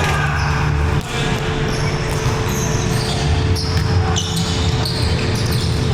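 Indoor volleyball game on a hard gym court: sneakers squeaking in short high chirps and the ball bouncing, over a steady hum.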